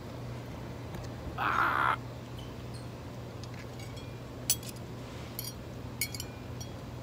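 A crow caws once, a rough call about half a second long, a second and a half in. Later, forks clink lightly on a plate a few times.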